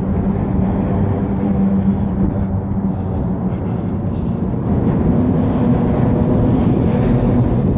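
Car driving: steady road and engine noise with a low hum that rises a little about five seconds in.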